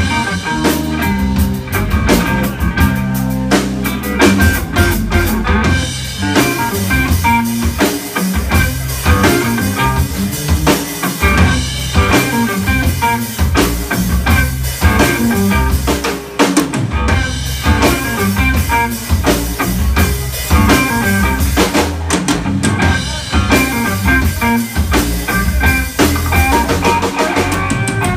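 Live band playing an instrumental funk groove: electric guitar over electric bass and a drum kit.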